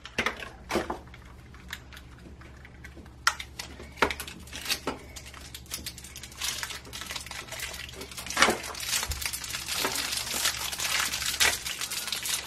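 Shopkins blind-bag packaging being opened by hand: a few sharp plastic clicks as the small plastic toy backpacks are pried open, then from about six seconds in, steady crinkling as the yellow plastic wrappers are torn open.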